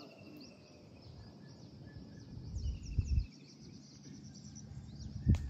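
Birds chirping steadily in the background, with two long, slightly falling whistled calls, one at the start and one in the middle. A low rumble on the microphone swells midway, and a single knock comes near the end.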